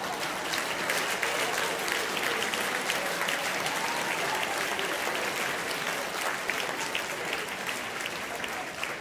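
Audience applauding a live stage sketch: a steady, dense patter of many hands clapping that eases off slightly near the end.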